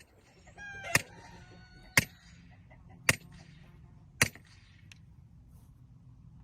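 Four sharp knocks about a second apart, the first preceded by a short honking call, with a low steady background.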